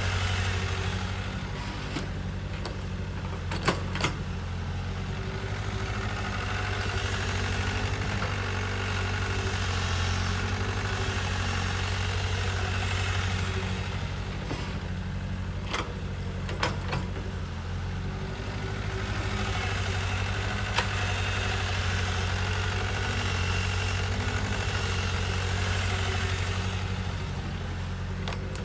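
Kobelco hydraulic excavator's diesel engine running under load, its sound swelling and easing in a slow cycle about every ten seconds as the machine works. A few sharp knocks come in between, a pair a few seconds in and more past the middle.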